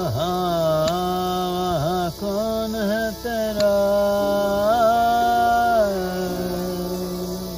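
Soundtrack music: a man's voice singing a slow, chant-like melody with long held notes and sliding ornaments, fading out near the end.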